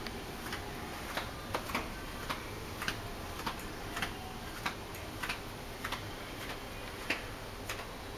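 Light, evenly spaced ticking, about three ticks every two seconds, over the low steady hum of a moving ship.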